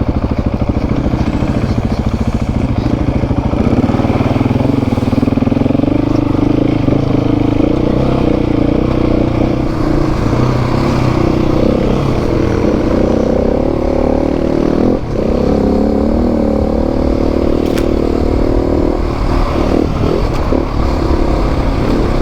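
Adventure motorcycle engine running while the bike is ridden, its note rising and falling with the throttle and gear changes, with a brief drop about fifteen seconds in.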